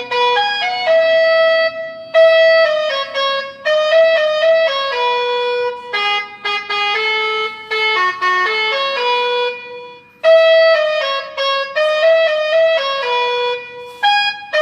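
Electronic basuri-style bus melody horn, which needs no compressed air, playing a tune through a horn loudspeaker. The tune is a run of clear notes stepping up and down, with a short break about ten seconds in.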